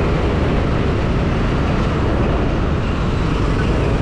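Steady rush of wind and road noise on the microphone of a motorcycle riding along.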